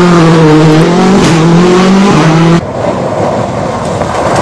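Rally car engine at high revs, its pitch held nearly steady with a small rise and dip. A little over halfway it cuts off abruptly to a quieter, even noisy hiss.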